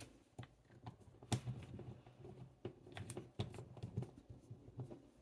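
Irregular light clicks and taps, about a dozen, of glass ink bottles and a fountain pen being picked up and set down on a desk.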